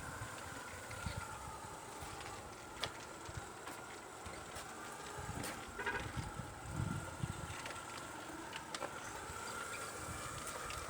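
A small motor whining steadily at a slightly wavering pitch, with scattered clicks and low knocks.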